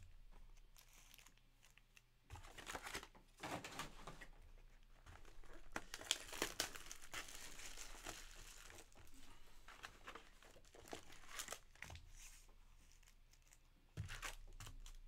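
Clear plastic wrap crinkling and tearing as it is handled and pulled off a box of trading card packs: irregular crackles and clicks, starting about two seconds in and loudest around the middle.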